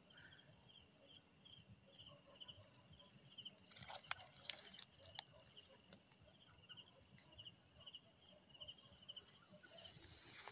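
Faint night insect chorus: a cricket chirping about twice a second over a steady high-pitched trill of other insects, with a few soft clicks about halfway through.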